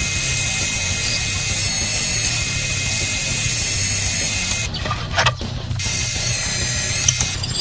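Drill press running and cutting into steel, first with a twist drill bit and then with a stepped piloted counterbore: a steady motor hum under a high metallic cutting whine. The sound breaks off briefly about five seconds in, then resumes.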